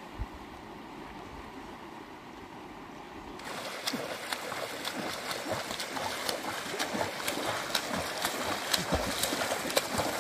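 River water flowing, a low steady rush at first. About three and a half seconds in it switches abruptly to a louder, brighter stream with many small splashes and trickles.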